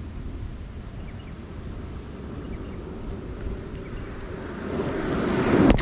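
Skateboard wheels rolling over coarse asphalt, growing steadily louder over the last couple of seconds as the board closes on the camera, over a low wind rumble.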